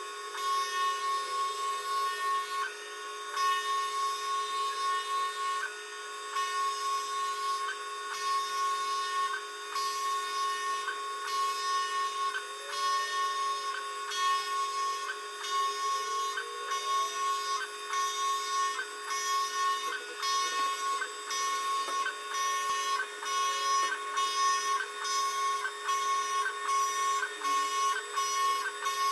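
Desktop CNC lathe running a turning program: a steady two-note whine from its motors, with tones sliding up and down as the axes move, over the rasp of the tool cutting the spinning workpiece. Light ticks come at regular short intervals.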